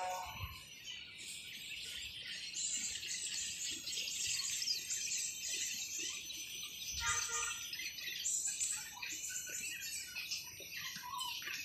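Small birds chirping and twittering in rapid high calls over a steady insect buzz, with a brief lower call about seven seconds in.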